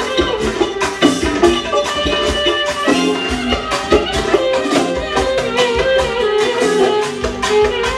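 Instrumental dance music with a steady, even drum beat under melody lines.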